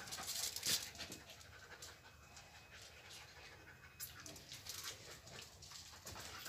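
A dog panting faintly in quick breaths, dropping off for a couple of seconds midway.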